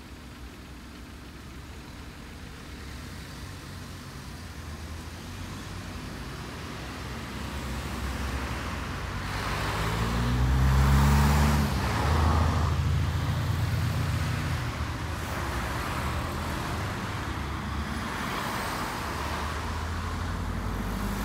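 Cars driving one after another close past, engines and tyres on the road. The sound builds to its loudest about ten seconds in as one car pulls past, then stays as steady passing traffic.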